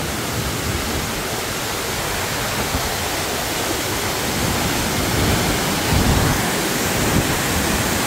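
Miin Waterfall, about 50 m high and in heavy flow, crashing down into its pool: a steady, even rush of falling water.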